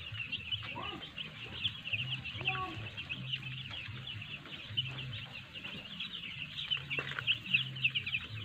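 A flock of hundreds of six-day-old broiler chicks peeping continuously in a dense chorus of short, high chirps, with a low hum underneath.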